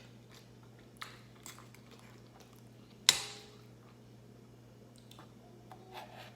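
Close-up eating sounds: soft chewing and squishy mouth noises of pancakes with whipped cream, with a few small clicks and one sharp, loud click about three seconds in.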